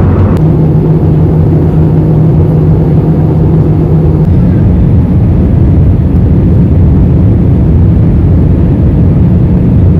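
Steady, loud rumble of an airliner's engines and airflow heard inside the cabin, with a low steady hum that stops about four seconds in.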